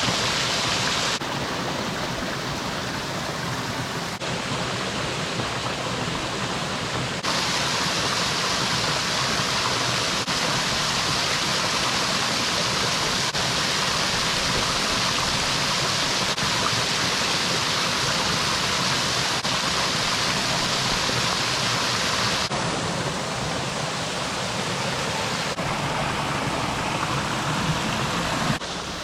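Waterfall: a steady rush of falling water. Its level and tone change abruptly several times, as one clip gives way to another.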